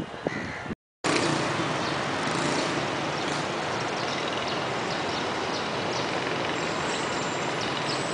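Steady wash of street traffic noise, even and continuous with no single vehicle standing out, starting after a brief dropout to silence about a second in.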